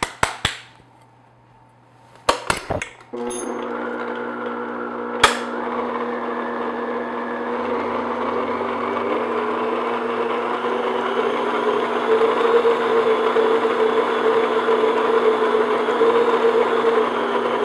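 Electric stand mixer starting up about three seconds in and running steadily, its beater working flour into cake batter in a glass bowl, getting slightly louder as it goes. A few clicks come before it starts, and one sharp knock about two seconds after.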